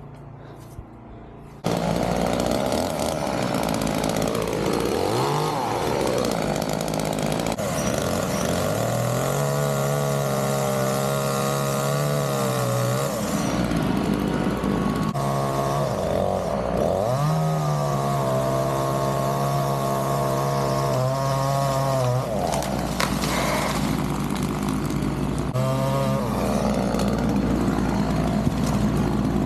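Chainsaw cutting into a pecan tree. It comes in suddenly about two seconds in, then revs up and down, held at steady high revs through two long cuts and dropping back between them.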